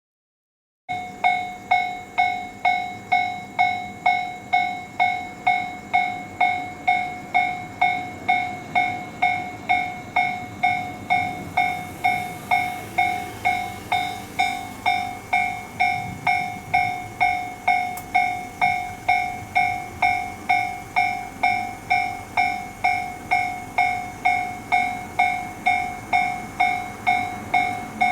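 Japanese railway level-crossing warning bell ringing: an electronic ding repeating about twice a second. It starts about a second in, signalling that a train is approaching and the crossing is closed.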